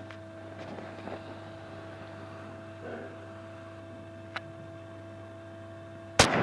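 A steady electrical hum, then a single loud revolver shot near the end that rings on in the concrete range hall.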